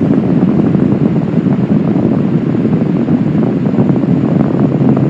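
Intense ground-rumble sound effect: a loud, steady, dense low rumble with a crackling grain that never lets up.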